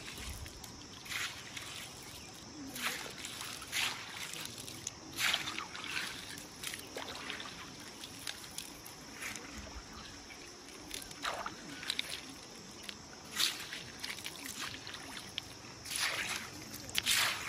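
River water sloshing and splashing in short, irregular bursts, about a dozen of them, over a steady high hiss.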